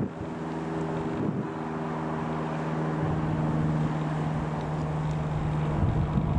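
Cessna 152's single piston engine and propeller droning steadily as the light aircraft flies past, its upper tones thinning out about halfway through. Wind buffets the microphone.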